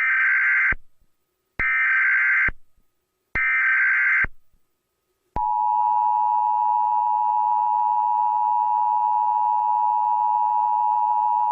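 Emergency Alert System tones: three short bursts of digital SAME header data, each under a second, then after a pause of about a second the steady two-tone attention signal starts and holds.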